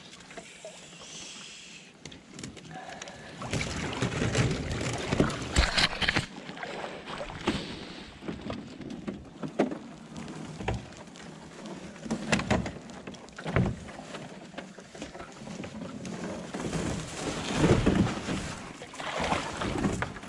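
Plastic sit-on-top kayak being paddled: irregular swells of paddle splashing and water sloshing against the hull, with a few short knocks.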